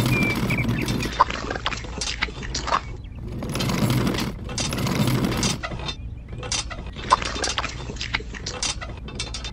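Scraping and light clinking as a miniature metal toy wheelbarrow of wet cement is rolled over fine gravel and tipped out, and cement is poured from a toy mixer drum into it. Two stretches of scraping are broken up by many small ticks and clicks, with a sharp click about a second in and another about seven seconds in.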